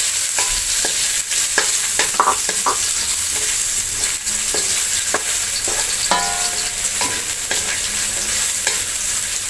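Garlic and onion sizzling in hot oil in an aluminium wok, with a wooden spatula stirring and scraping against the pan in short, irregular strokes over a steady frying hiss.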